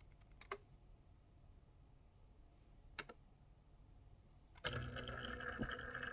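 Two single key clicks, then about four and a half seconds in a Brother AX-20 electronic typewriter's mechanism starts running with a steady whir made of several held tones.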